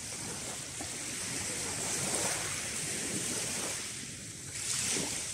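Small sea waves washing onto a shingle beach, with a louder surge of wash a little before the end.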